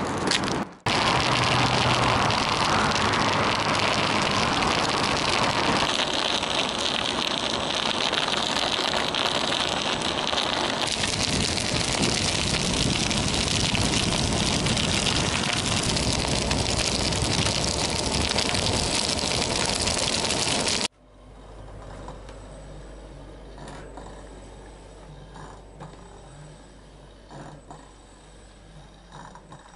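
Ninebot One S2 electric unicycle riding over rough asphalt, a loud, steady rush of wind and tyre noise on the microphone. About two-thirds of the way through it cuts to a much quieter room where the unicycle rocks back and forth on a balcony floor, with small scattered clicks and ticks over a low hum.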